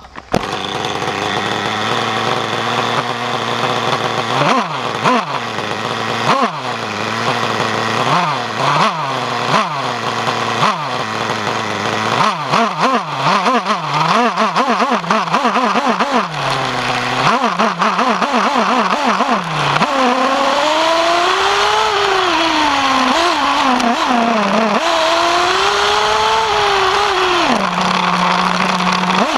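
Novarossi nitro glow engine of a Kyosho Inferno MP9 TKI3 1/8-scale buggy, heard close up from a camera on the car. It idles steadily, then is blipped again and again, each blip revving up sharply and falling back, the blips coming faster about twelve seconds in. From about twenty seconds it revs continuously at high pitch, rising and falling with the throttle.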